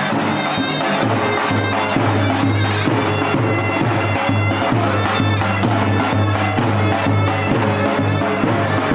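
Traditional folk dance music played loudly on a davul bass drum, beating steadily under a reed wind instrument that carries the melody.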